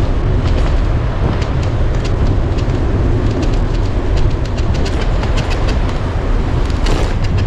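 Wind buffeting the microphone of a bicycle-mounted camera while riding, a steady low rumble, with frequent small clicks and rattles from the bike and mount over the road surface.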